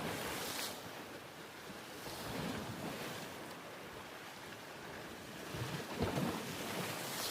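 Ocean surf: waves washing in and falling back, in swells that rise and fade, with a louder surge near the end.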